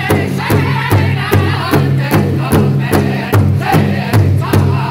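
Powwow drum group singing an intertribal song: several men beat one large powwow drum in unison, about two and a half strong, even beats a second, under loud high-pitched group singing.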